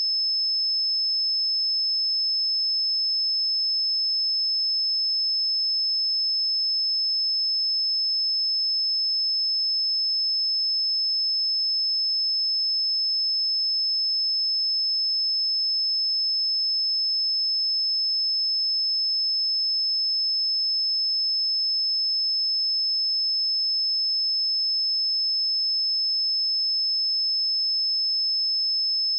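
Pure 5226 Hz sine-wave test tone held steady at constant loudness: a single high-pitched whistle-like pitch.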